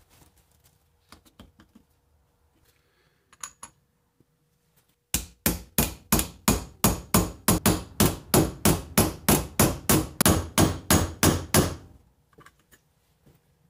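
Hammer blows on a bearing driver, driving a tapered roller carrier bearing down onto a Toyota 8-inch differential carrier: a steady run of sharp strikes, about four a second, for roughly seven seconds, starting about five seconds in. A few light handling clicks come before.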